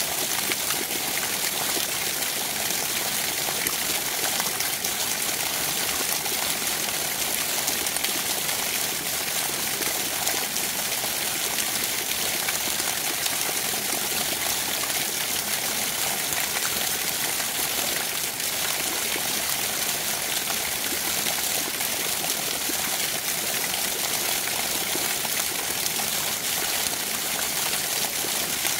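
Water of a shallow stream flowing steadily, a constant even rush.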